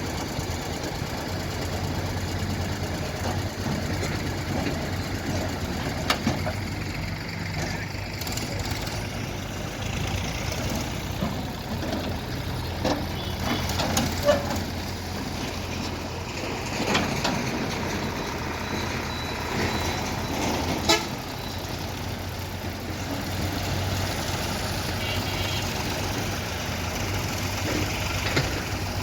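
Diesel engines of a JCB 3DX backhoe loader and tractors running steadily while mud is loaded, with a few sharp knocks spread through and a short run of high beeps near the end.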